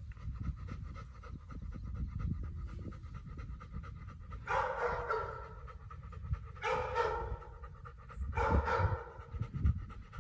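German shepherd panting with its tongue out. Three short pitched sounds come in over the second half.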